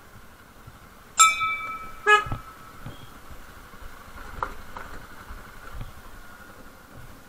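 Motorcycle horn honked twice about a second apart, a half-second blast then a shorter one, over the bike's engine running quietly. The horn's relay is faulty, and the rider says the horn does not sound properly.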